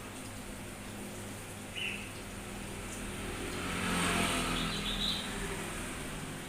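A steady low hum with two short bird chirps, about two and five seconds in. Midway, a passing vehicle swells up and fades away, the loudest sound.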